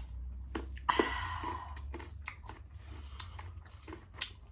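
Close-up chewing of a mouthful of food: irregular wet clicks and smacks, with a louder smack about a second in, over a low steady hum.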